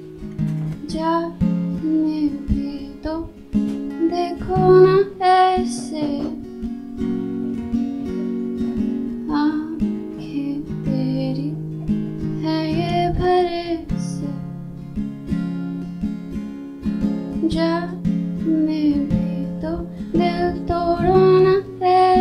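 A woman singing a Hindi song to her own acoustic guitar. The guitar plays throughout, and sung phrases come and go over it.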